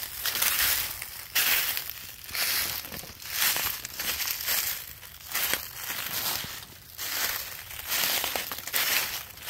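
Footsteps crunching through dry leaf litter and undergrowth at a steady walking pace, roughly one step every three-quarters of a second.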